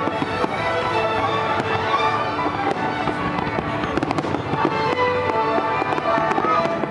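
Aerial fireworks shells bursting with many sharp bangs and crackles, over music with held notes playing throughout.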